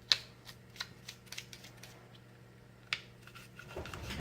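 A few sharp clicks and light taps of small gun parts and cleaning tools being handled, the loudest just after the start and another near the end, then a denser rustling and scraping that builds in the last moment.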